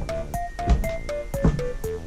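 Background music: a bouncy keyboard melody of short notes, about four a second, over a drum beat.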